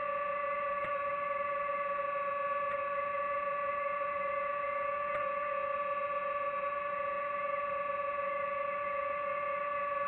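DJI FPV drone's motors and propellers giving a steady, even-pitched whine, held at a constant throttle, with a few faint ticks.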